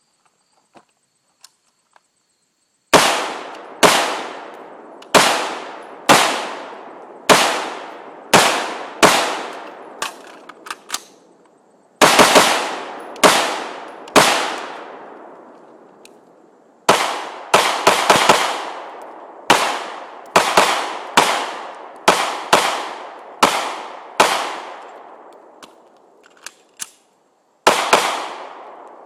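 Semi-automatic gunfire: about two dozen single shots from a Bushmaster AR-15 rifle or an HK 9 mm pistol, starting about three seconds in and coming roughly one a second in strings with short pauses, each crack followed by a long echo.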